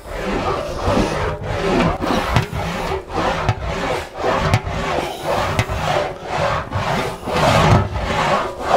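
English wheel rolling a sheet-metal Austin-Healey rear guard panel back and forth under light pressure, stretching and shaping it. It makes a rasping rub in even strokes, about two a second.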